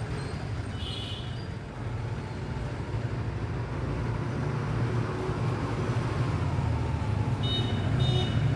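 Steady low rumble of road traffic that grows slightly louder, with a few brief high chirps about a second in and near the end.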